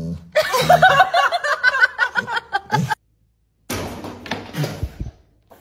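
A person laughing in rapid short bursts for about three seconds. After a brief break, a quieter stretch of indistinct noise with a few knocks.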